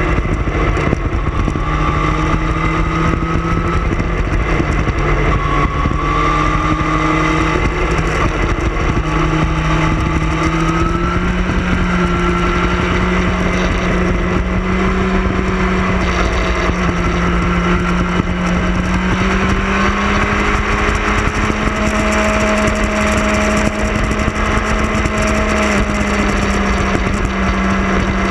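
Motorcycle engine running at riding speed, its note dipping slightly and then climbing gradually in steps as the throttle changes through the curves, under a heavy rush of wind noise on the microphone.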